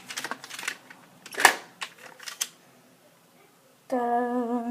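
Sharp plastic clicks and clacks from handling the Nerf Quad Blaster, the loudest about one and a half seconds in. Near the end comes a short held vocal hum.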